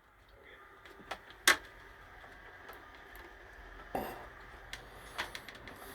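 Small, sharp clicks and taps of a tool against the plastic and metal parts of a JVC cassette deck while a spring is being fitted into the mechanism, a handful of them spread out, the loudest about a second and a half in.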